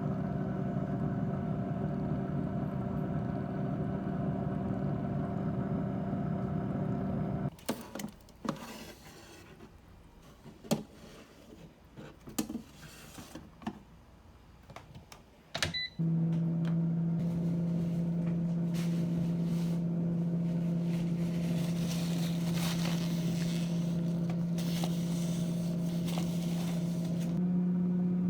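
Instant Vortex Plus air fryer running, its fan giving a steady hum. In the middle the hum drops away for about eight seconds of scattered clicks and knocks, then comes back slightly lower in pitch.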